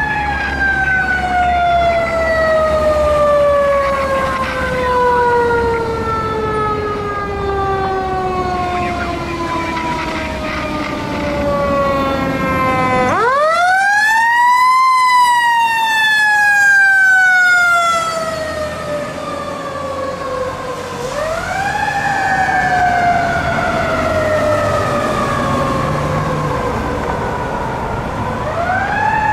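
Fire truck's mechanical siren in one long falling wail as it coasts down. About halfway through it is wound up quickly to a high pitch and coasts down again, and it is wound up twice more in the last third, over the low rumble of the truck.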